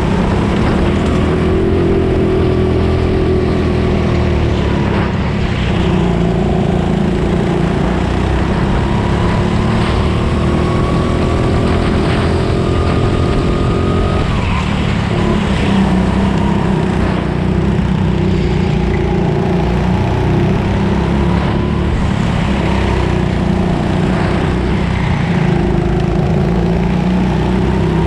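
Rental go-kart engine running hard, heard from on board the kart. The revs climb steadily along a straight, fall sharply about halfway through as the kart slows for a corner, then rise and fall again through the following turns.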